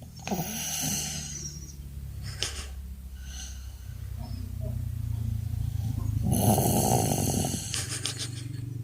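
Snoring in deep sleep: a continuous low rumbling rasp that swells into a loud, coarse snore about six seconds in.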